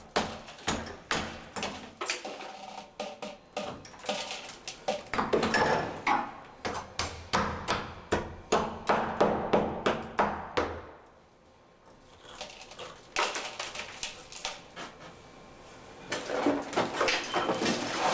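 Hammer blows chipping away a light concrete wall with wire-mesh reinforcement, a rapid run of sharp strikes about two to three a second. The blows pause briefly a little past halfway, then resume with more knocking and scraping.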